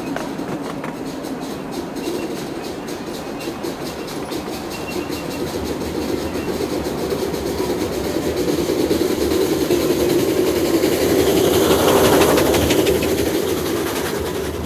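Miniature railway train running along its track, the wheels clicking steadily over the rail joints over a rumble that grows louder about two thirds of the way in.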